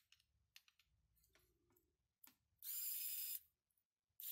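Small electric motor of a 3D-printed cordless screwdriver switched on briefly twice, each run a short whir of under a second, the second starting near the end. Between the runs, quiet clicks of the plastic parts being handled.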